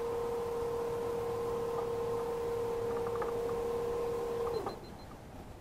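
Electric Bixpy jet motor on a kayak running with a steady high whine, then switched off about four and a half seconds in, its pitch sliding down briefly as it stops.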